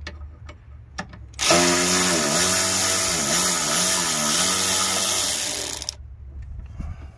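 Power tool motor running for about four and a half seconds, its pitch dipping and recovering several times under load as it backs out the 10 mm bolt holding the AC-line bracket. A few light clicks come before it starts.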